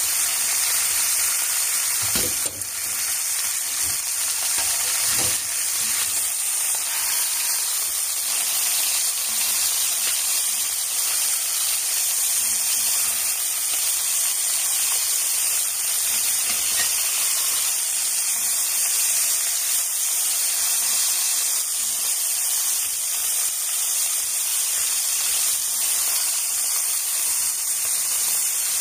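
Two whole chickens sizzling as they brown in fat in an enamelled cast-iron pot, a steady frying hiss. A couple of knocks, about two and five seconds in, come from the silicone spatula turning the birds in the pot.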